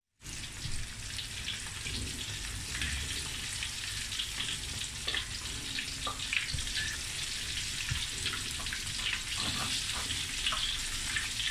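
Batter-coated mushroom pieces deep-frying in hot oil in a wok: a steady sizzle with scattered crackles and pops.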